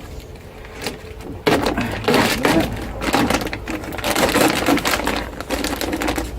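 Plastic door lining being peeled off its tacky adhesive, crinkling and crackling, starting about one and a half seconds in.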